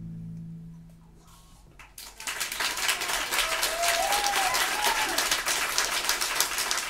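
The last held note of the song fades away, and about two seconds in an audience breaks into steady applause, with a voice or two calling out over the clapping.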